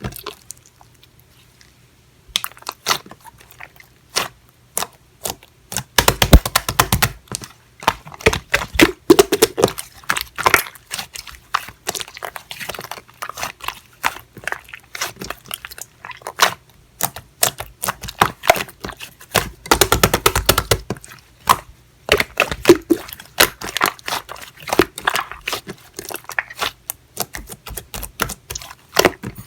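Clear slime being squeezed and pressed by hand, giving quick irregular runs of sharp little pops and clicks, after a brief pause near the start.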